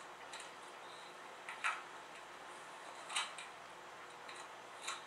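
Soft clicks, about one every second and a half, over a steady hiss.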